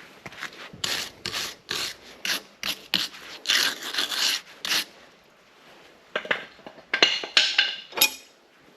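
Hand-tool scraping strokes on steel, about two or three a second, in two spells with a short pause between them, ending in a sharp click.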